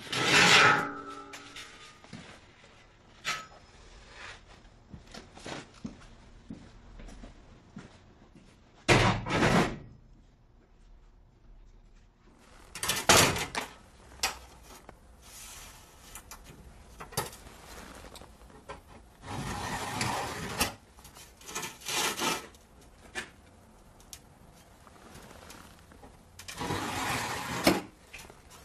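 Irregular scraping, rubbing strokes, each under a second long and spaced a few seconds apart, with small clicks and taps between them.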